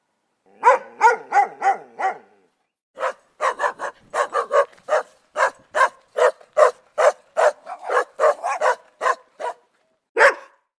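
A dog barking in short, sharp barks: a quick burst of about five, a brief pause, then a long run of some fifteen barks at about three a second, and a single bark near the end.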